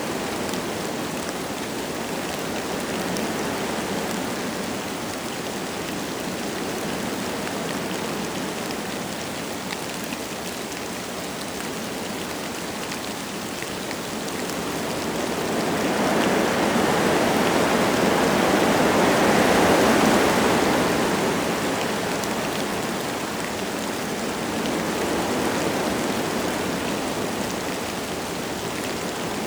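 Wind blowing through forest trees with light rain falling. A stronger gust swells up a little past halfway and dies away again, with a smaller rise near the end.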